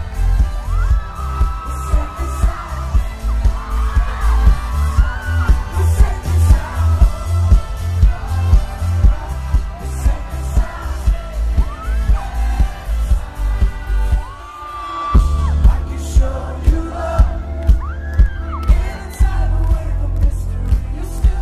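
Live electro-pop band playing through a big festival sound system, heard from the crowd: a steady, heavy kick-drum and bass beat with singing and trumpet on top. The beat drops out for about a second roughly two-thirds of the way through, then comes back in.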